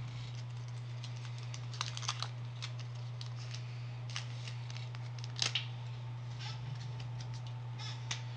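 Pokémon booster pack wrapper and cards being handled: scattered crinkles and light clicks, the loudest a little past halfway, over a steady low hum.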